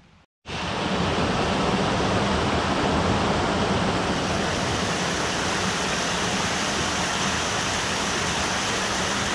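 Stockley Brook, swollen after heavy rain, pouring down a small stepped waterfall: a steady rush of water that starts suddenly just under half a second in.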